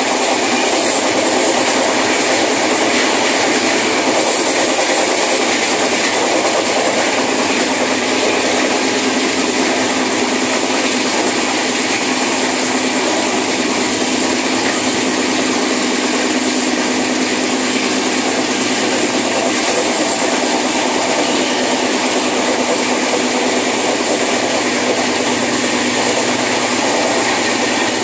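Train running along its rails, heard from on board at a carriage window: a steady, even noise of wheels and carriage that holds unchanged throughout.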